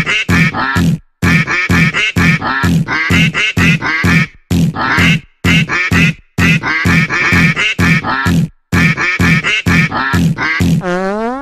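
Quick runs of short, nasal, quacking notes, like a cartoon duck sound effect, repeated in bursts of several notes with short breaks between them. About a second before the end, a rising pitched glide begins.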